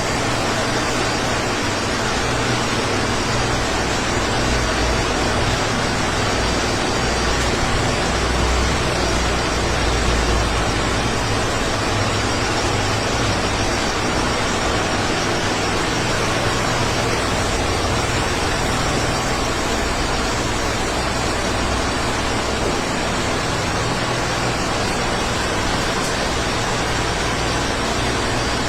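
Steady, unbroken vehicle and road noise: a constant low rumble under a broad hiss.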